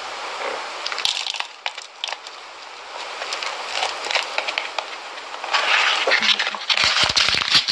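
Dry crackling and crunching as a small paper bag of powdery "cement" is tipped out and handled. The sound gets louder and busier in the last couple of seconds.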